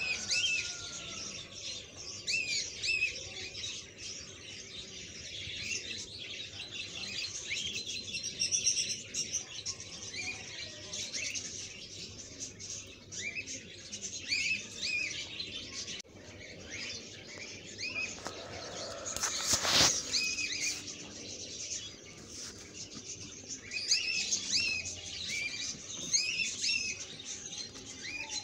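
Many small birds chirping busily, with short overlapping chirps throughout. About twenty seconds in there is one brief sharp noise.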